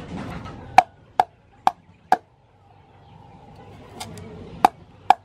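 Cleaver slicing through galangal root onto a thick round wooden chopping board: four sharp knocks about half a second apart, a pause, then two more near the end.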